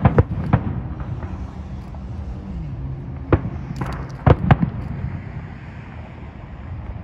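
Aerial fireworks shells bursting in the distance: a quick cluster of sharp bangs at the start, a single bang a little over three seconds in, then two more close together about a second later, over a steady low rumble.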